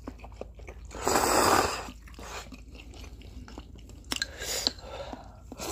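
Instant noodles being eaten with chopsticks: one loud slurp of noodles about a second in, lasting under a second, then chewing with small clicks and smacks.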